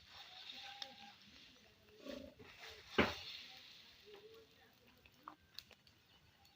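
Farmyard ambience with scattered short farm-animal calls and noises, the loudest a single sharp call about three seconds in.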